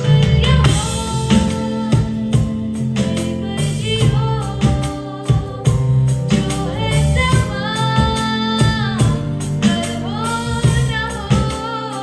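A girl singing a Bollywood song into a microphone over a backing track, playing along on an electronic drum kit, with long held notes about two-thirds of the way through.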